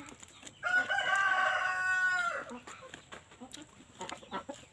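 A rooster crows once, a single held call of nearly two seconds starting about half a second in. Light crunching clicks from chewing crispy fried pork skin come near the end.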